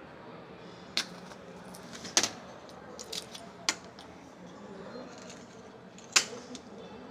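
Hard plastic EAS anti-theft tags being handled, giving several separate sharp clicks and knocks; the loudest comes about six seconds in.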